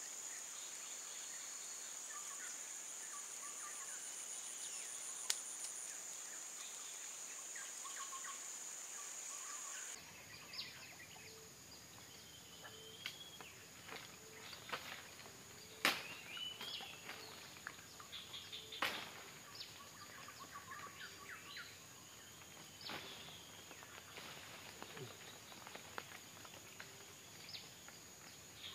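Insects buzzing in a steady high-pitched drone over a swamp-forest background. After about ten seconds the drone gets softer, and short bird chirps and a few sharp clicks come in.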